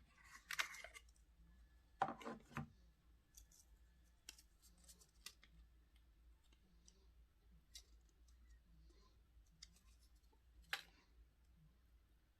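Quiet handling noises from unboxing earbuds: scattered small clicks and brief rustles of packaging, the loudest rustle about two seconds in and a sharp click near the end.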